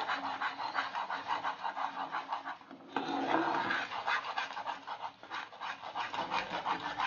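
Flat steel spatula stirring and scraping boiling sugar syrup with ghee in a non-stick pan, a quick run of back-and-forth scraping strokes over the bubbling syrup with a short pause about three seconds in. The syrup is being stirred continuously as it cooks down into bura.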